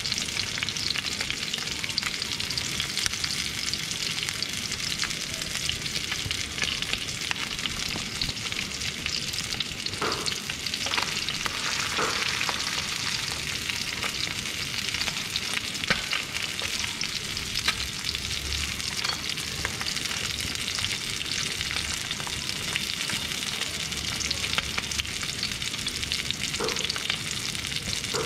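Chunks of fish frying in hot oil in a pan: a steady sizzle with fine crackling of spitting oil. A few light clicks against the pan come about a third of the way in and again near the end.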